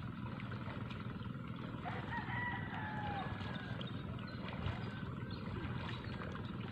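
Rooster crowing: a few drawn-out calls about one to three seconds in, over steady background noise.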